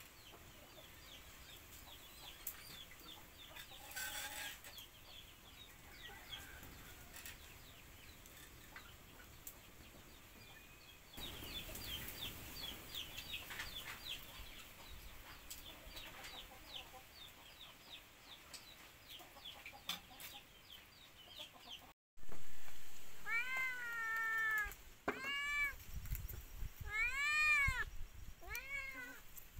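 A cat meowing several times in quick succession, each meow rising then falling in pitch; the meows are the loudest sound. Before them, faint rapid high chirping.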